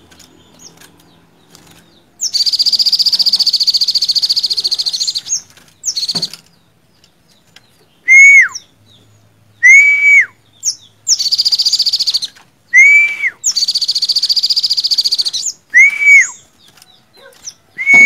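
Olive-backed sunbird singing loudly. Long, high, rapid buzzing trills of about two to three seconds alternate with short, clear whistled notes that hold steady and then drop away sharply, repeated several times.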